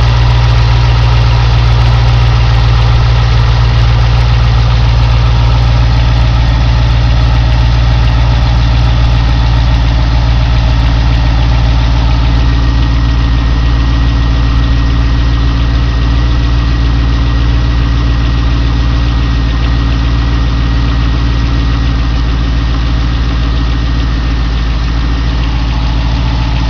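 2002 Corvette Z06's LS6 V8 idling steadily, with a ticking that the owner cannot place: an exhaust leak or lifter tick.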